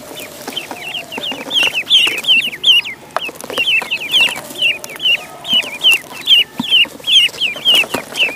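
A crowd of ducklings peeping together: short, high chirps that slide downward, several a second and overlapping from many birds.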